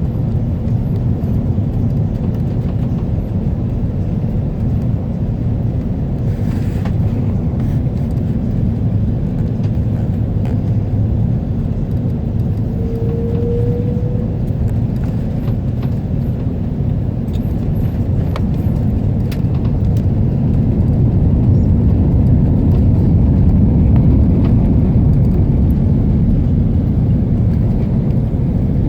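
Steady low rumble of an Airbus A330 airliner's engines and airflow heard inside the passenger cabin during the landing, swelling a little about two-thirds of the way through. A short faint tone sounds near the middle.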